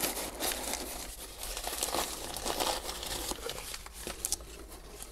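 Shredded paper packing rustling and crinkling as hands dig through it, a steady run of small crackles that eases off near the end.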